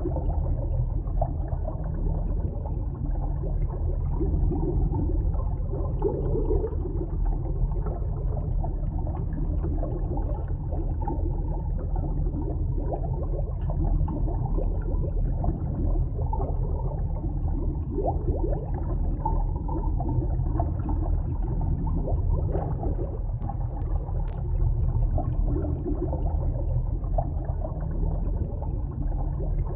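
Muffled underwater ambience: a steady low rumble with gurgling water noise, heard through a submerged camera housing. There is a single faint click about 24 seconds in.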